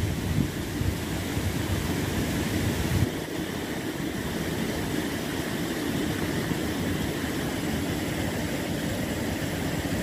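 Steady rush of river water running over rocks and a low weir, with a gusty low rumble of wind on the microphone that eases about three seconds in.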